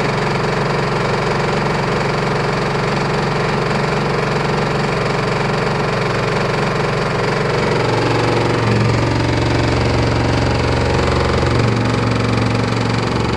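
LG F14A8RD washer-dryer running with an empty drum, making a loud, steady rumble and rattle, its low hum shifting pitch about eight seconds in as the drum speed changes. The machine is shaking hard: a fault.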